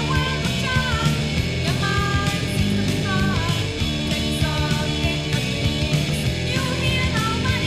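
Recorded 1980s noise-pop rock song: electric guitar, bass and drums playing steadily, with a voice singing a melody over them.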